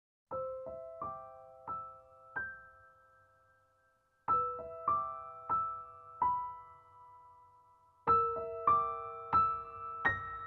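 Slow, gentle solo piano music: unhurried four-note rising figures, each note struck and left to fade, a new figure about every four seconds. It begins about a third of a second in, out of silence.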